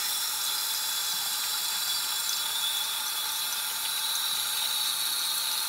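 Fluidmaster 400A toilet fill valve open, water hissing steadily into the tank as it refills.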